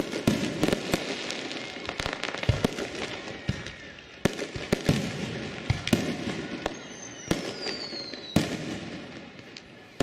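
Fireworks going off: a rapid, irregular series of sharp bangs and crackles. Late on, a whistling firework gives a falling whistle that ends in a bang.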